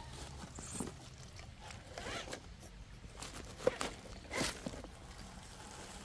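RC rock crawler's brushless motor and gears whining in short, rising and falling bursts as it climbs, with two sharp knocks about two thirds of the way in.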